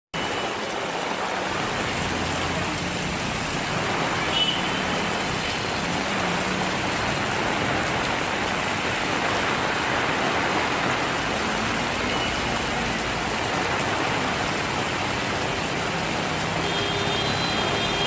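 Heavy monsoon rain pouring steadily onto a flooded road, with traffic running in the background.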